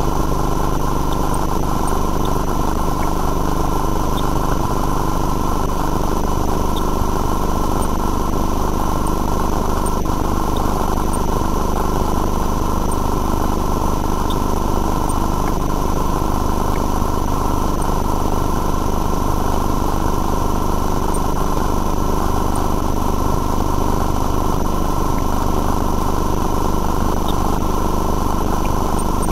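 Steady, unchanging machine hum like an idling engine, with a constant high whine over it, from the running sewer-inspection camera equipment.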